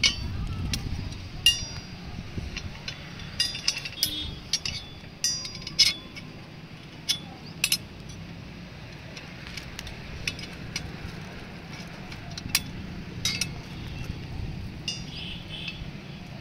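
Metal parts of a satellite dish mount clinking and knocking together as the feed arm is fitted into its bracket and bolted. The clinks are irregular, some ringing briefly, and most fall in the first half.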